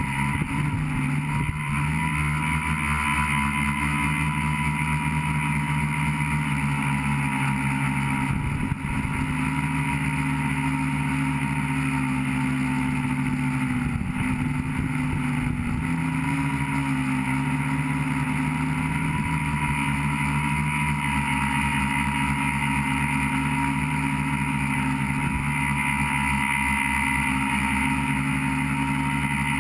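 Tricopter's electric motors and propellers humming steadily as picked up by its onboard camera, the pitch shifting a little now and then as the throttle changes.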